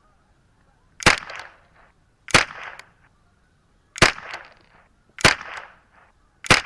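Five .22 LR rifle shots from a semi-automatic Ruger 10/22 Sporter firing Eley Team ammunition, about one every 1.2 seconds. Each is a sharp crack with a short fading tail.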